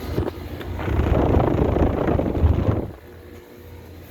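A loud rushing noise for about two seconds that cuts off suddenly, leaving the steady hum of outdoor air-conditioner condenser units.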